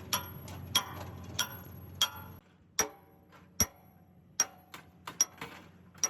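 A series of sharp metal taps, about one every half to three-quarters of a second at an uneven pace, each ringing briefly.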